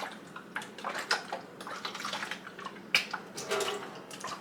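Vinegar and warm water sloshing inside a plastic humidifier tank as it is swished around, with one sharp knock about three seconds in.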